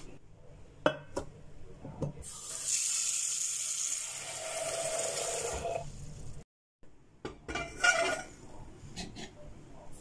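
Tap water running into a stainless-steel pot in a sink for about four seconds, then stopping abruptly, followed by a few clattering knocks of the metal pot being handled.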